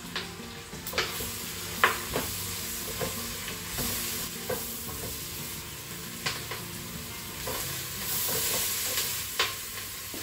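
Mushrooms and onions sizzling in the inner pot of a Crockpot Express multicooker on sauté mode, stirred with a spatula that scrapes and knocks against the pot every second or two.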